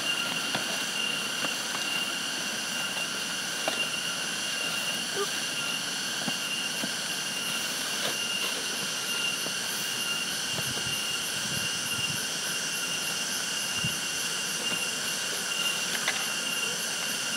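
Steady, high-pitched drone of insects in the forest, holding one pitch throughout. A few faint rustles and small knocks come from litter being gathered into plastic rubbish bags.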